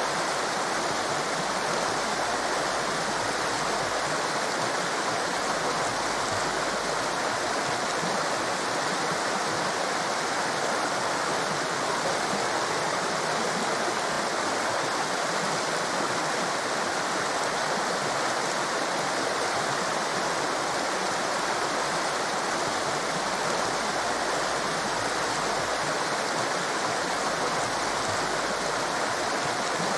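Torrent of fast-flowing water rushing steadily, an even, unbroken noise that does not rise or fall.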